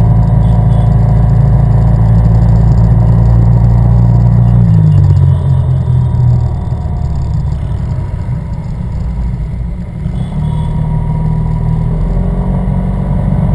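Yamaha TMAX 500 maxi-scooter's parallel-twin engine running under way, heard from on board. About five seconds in the note drops and goes quieter as the throttle eases, then picks up again about ten seconds in.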